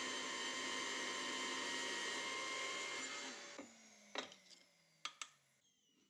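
Bench drill press running a 3 mm bit into a metal rod, a steady noisy whir. After about three and a half seconds it drops away and winds down with a faint falling whine, broken by three sharp metallic clicks.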